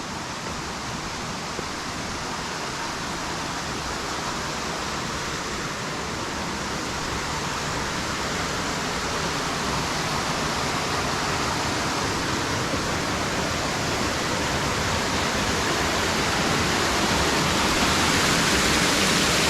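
Water of a small rocky mountain stream rushing over bedrock, a steady rush that grows gradually louder as it is approached.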